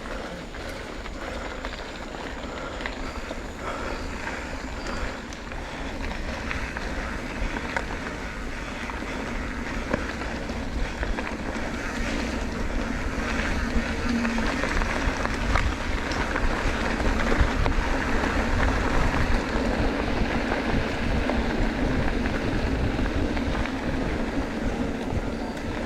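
Wind buffeting the microphone with rolling tyre and road noise from a moving bicycle, growing louder through the middle and easing slightly near the end.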